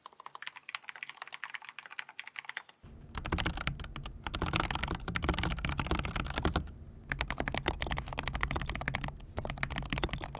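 Rapid typing on a mechanical keyboard fitted with Iced Matcha tactile switches, a dense run of keystroke clicks. About three seconds in, the typing turns much louder and fuller, with two brief pauses later on.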